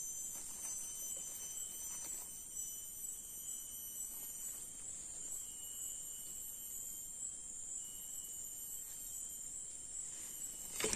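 Steady high-pitched drone of an insect chorus, with a brief knock near the end.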